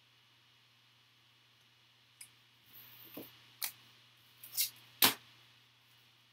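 A handful of short taps, clicks and rustles of trading cards and a foil pack being handled on a table, starting about two seconds in.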